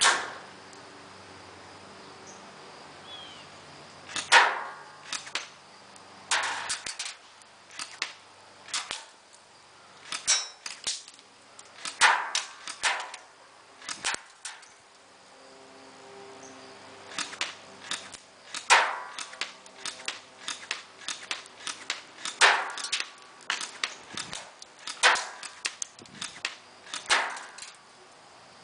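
A 350 fps airsoft electric gun (AEG) firing .20 g BBs: many sharp, short cracks, some single and some in quick runs of two to four, spread a second or two apart.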